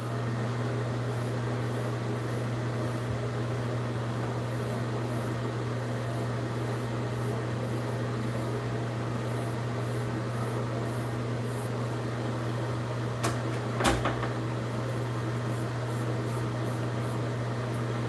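Steady low hum of a fan running in a small bathroom, with two short knocks close together about three quarters of the way through.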